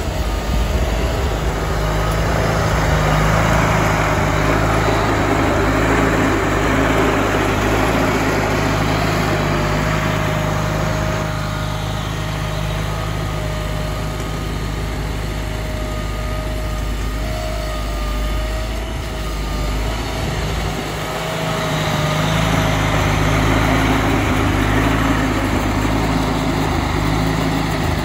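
Case 446 garden tractor's engine running steadily under load, with the rush of its front-mounted snowblower throwing snow; the rushing swells and eases over the stretch.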